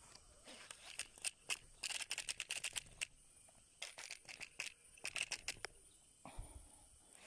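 Baitcasting reel being wound in by hand: faint clicking that comes in short spurts of rapid clicks.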